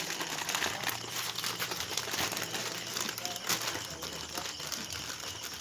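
Plastic snack packaging crinkling and crackling as it is handled, a continuous rustle of small crackles.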